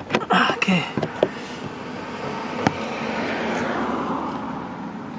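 A flat screwdriver prying and scraping at a plastic screw cover on a 1996 Toyota Camry's front door panel: squeaky scraping with a few sharp clicks in the first second, and one more click near the middle. Behind it, a broad rushing noise swells and fades over a few seconds.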